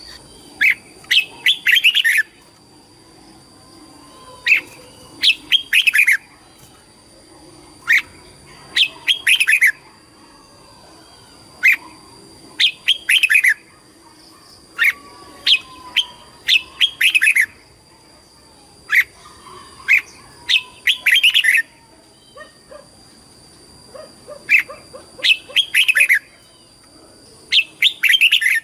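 Red-whiskered bulbul singing: short, bright, quickly sweeping phrases repeated every second or two, with brief pauses between them.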